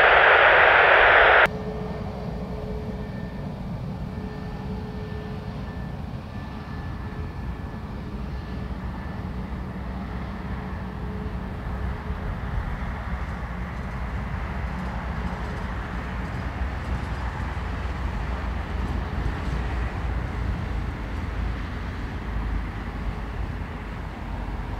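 Airbus A320neo jet engines running as the airliner taxis: a steady jet hum with a faint high whine, growing slowly louder. A louder rushing noise cuts off abruptly about a second and a half in.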